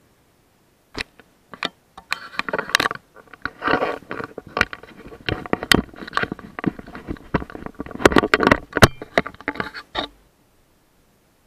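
A run of irregular close-up clicks, knocks and scraping rustles that starts about a second in and stops abruptly about ten seconds in.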